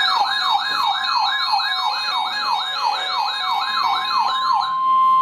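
Electronic emergency-alert attention tone: a siren-like pitch that falls quickly, repeating about three times a second, over a steady high beep. Near the end the sweeps stop, the steady tone holds alone for a moment and then cuts off sharply.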